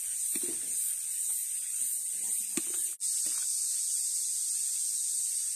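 A steady high hiss, with a few soft knocks and scrapes of a spoon scooping chopped-chili bean paste into a glass jar. The hiss drops out for an instant about halfway through.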